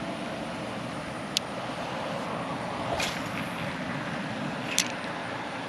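Steady rushing outdoor background noise with three short, sharp clicks about a second and a half apart.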